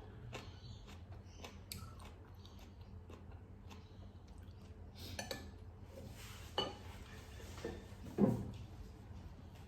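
Eating: cutlery clicking and scraping against a dish, with chewing between, and two louder knocks about six and a half and eight seconds in.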